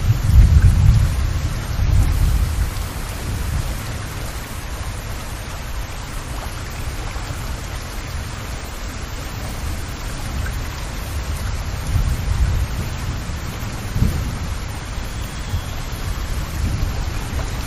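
Heavy rain falling steadily and splashing on a wet, puddled street. Low rumbles swell and fade several times underneath, strongest near the start.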